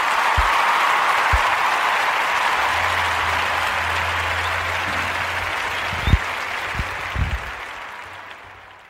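Recorded crowd applause that swells, holds and then fades away near the end, played as a break between show segments. A few dull low thumps sound under it.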